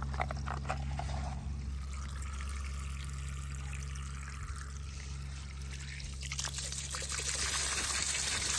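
A thin stream of water trickling and pouring over a small die-cast toy car and the wet grass, louder near the end, over a steady low hum.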